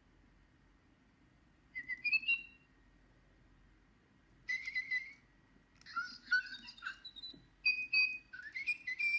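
Little Live Pets Tweet Talking toy bird chirping and whistling electronically in several short bursts of high, gliding tweets, starting about two seconds in.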